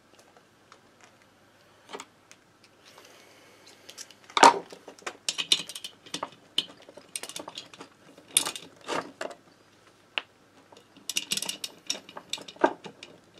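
Metal hand tools clinking and clicking: a socket wrench being fitted and worked on the cylinder head nuts of a Motobécane AV89 moped engine. Irregular sharp metallic clinks, the loudest about four and a half seconds in.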